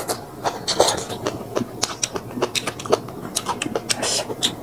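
A person chewing food close to the microphone, with irregular wet clicks and smacks of the mouth, several a second.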